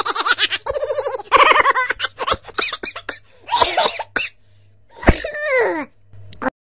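Loud, hearty human laughter in several bursts, ending in a long falling laugh; the sound cuts off abruptly near the end.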